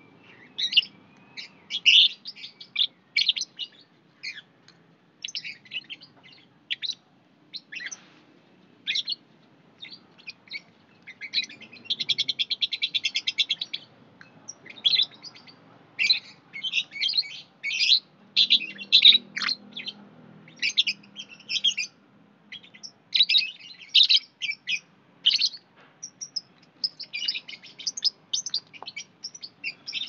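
Lovebirds chattering in a busy run of short, high-pitched chirps and squeaks, with a fast rattling trill of about two seconds near the middle.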